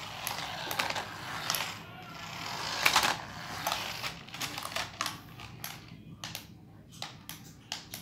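A toy remote-control car's small electric motor and plastic gears whir in bursts as it drives on a tile floor, with a run of sharp plastic clicks and rattles as it is handled.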